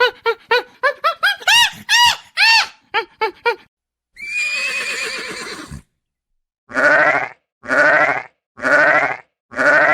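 A series of animal calls: a quick run of short high chirps and a few rising-and-falling cries, then one harsh rasping call about a second and a half long, then four evenly spaced pitched calls about a second apart.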